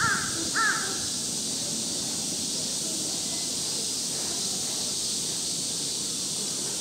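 A crow cawing twice in quick succession near the start, over a steady high hiss.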